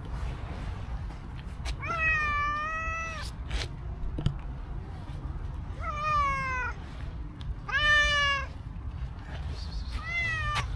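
Black-and-white cat meowing four times, the first meow long and drawn out, the second falling in pitch.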